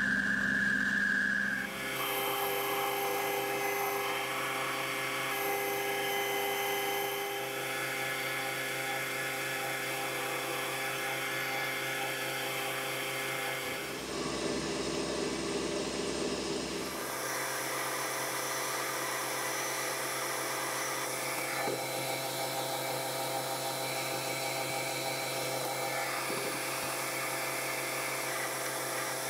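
Metal lathe spinning a steel pin while it is turned and then drilled from the tailstock, a steady machine whine from the spindle and gears. The tone changes abruptly a couple of seconds in, near the middle, and again a few seconds later.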